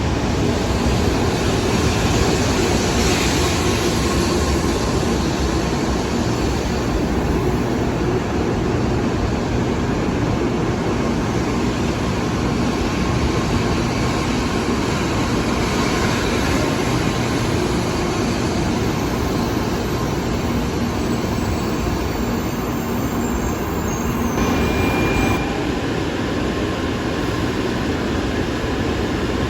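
An out-of-service Shinkansen train running into the platform: a steady rail noise of wheels and running gear that continues throughout.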